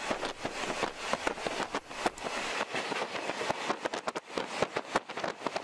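Wheels of a moving 50-series passenger coach clattering over rail joints and points, a dense, irregular run of clicks and knocks heard from inside the coach. A freight train passing alongside adds a low rumble that drops away about two and a half seconds in.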